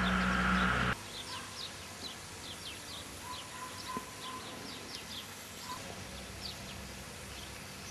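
A loud steady mechanical hum that cuts off abruptly about a second in, followed by small birds chirping, many short high calls over faint outdoor background, with a thin steady tone for a couple of seconds in the middle.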